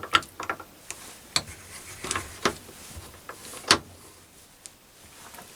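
Irregular sharp clicks and knocks of hard objects being handled, about half a dozen, the loudest nearly four seconds in.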